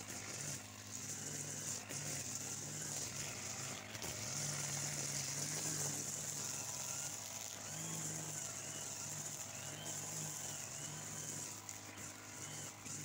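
Petrol brush cutter with a nylon string head running as it cuts grass. The engine note keeps rising and falling, with a steady high whirring hiss over it.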